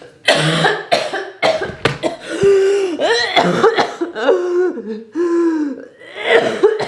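A woman coughing and letting out drawn-out, wavering groans without words, a put-on fit of choking as she fakes dying. It starts suddenly and continues in a run of loud bouts with short breaks.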